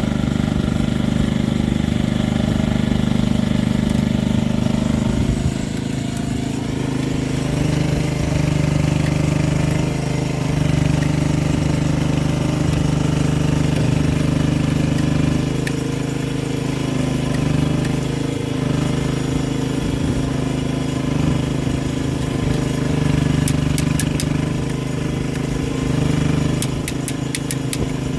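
A motor or engine running steadily, its low drone shifting in pitch every few seconds, with a few quick sharp clicks near the end.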